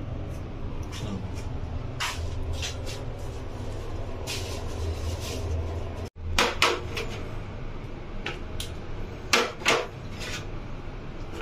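Sharp knocks and clatters of dishes against a plastic mixing bowl as chopped green chilli and onion are tipped in, the loudest coming in pairs just after halfway and near the end, over a steady low background rumble.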